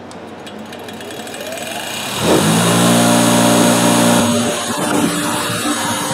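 Bench grinder fitted with a coarse wire wheel switched on: its motor whine rises as the wheel spins up. About two seconds in it jumps to a loud steady hum, and it runs at speed with no work against the wheel.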